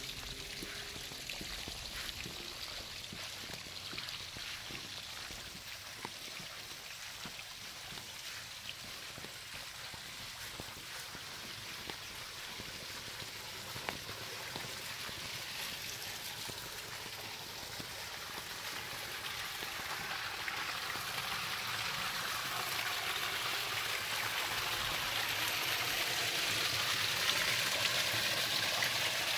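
Water trickling and splashing through a garden pond's rocky stream and over a small stone-wall waterfall into the pond: a steady rush of water that grows louder over the second half.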